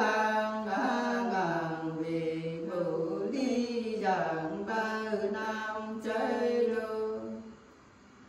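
Two women singing a Nùng folk song unaccompanied in long held notes that slide and dip in pitch. The singing stops about seven and a half seconds in.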